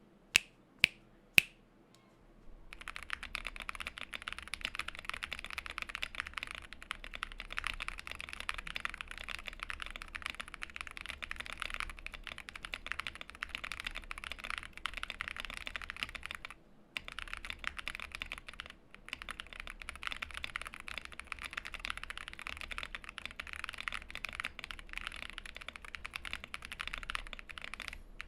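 Zoom87 mechanical keyboard with Neapolitan Ice Cream switches, aluminium plate, plate and switch foam, a tape mod and CannonCaps keycaps being typed on. Three sharp single clicks in the first second and a half, then fast continuous typing from about three seconds in, broken by two brief pauses.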